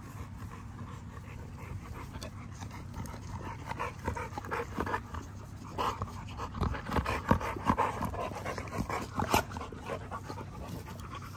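American bully dogs panting up close, with a busier run of short snuffling and clicking sounds through the middle as they mouth at a hand.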